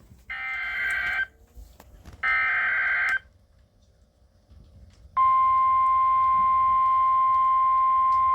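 Weather radio speaker sounding a NOAA Emergency Alert System activation: two buzzy SAME header data bursts, each about a second long and a second apart. About five seconds in, the loud, steady 1050 Hz warning alert tone starts and holds.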